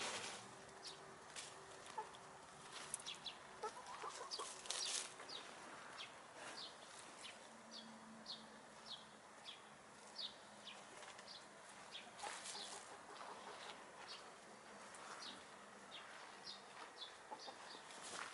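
Domestic hens clucking quietly as they forage, amid many short, high ticks scattered throughout.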